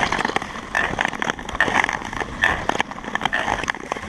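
Nordic tour skate blades scraping and gliding over snow-covered lake ice in steady strides, a swell of scraping about every second, with sharp clicks of ski-pole tips striking the ice.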